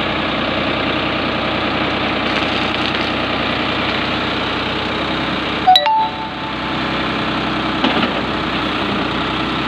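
New Holland tractor's diesel engine running steadily at idle, with one sharp metallic strike and a brief ring just under six seconds in.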